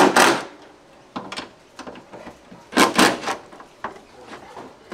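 Cordless impact wrench (rattle gun) with a 13 mm socket undoing the bonnet hinge bolts in two short bursts, one right at the start and another about three seconds in, with small clicks of tool and metal between.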